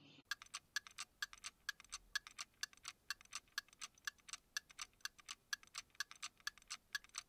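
Clock-ticking sound effect: quick, even ticks at about four a second, starting about a quarter second in. It counts off the thinking time for naming the buildings.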